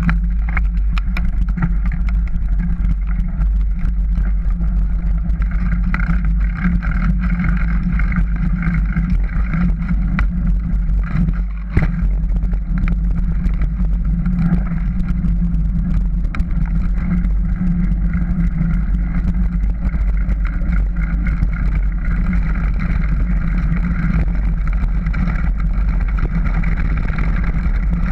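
Wind buffeting a bike-mounted action camera's microphone, with tyres rumbling over gravel on a fast descent of a dirt road; a single knock about twelve seconds in.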